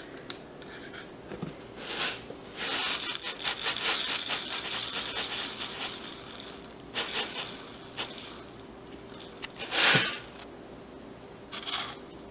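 Salt being poured into a plastic bowl on a kitchen scale: a grainy hiss of running granules that lasts several seconds, then a few shorter rustling scrapes as more salt is added by hand, the loudest about ten seconds in.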